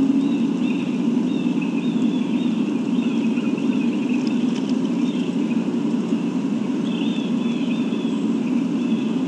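Birds chirping in short, repeated calls over a steady low drone.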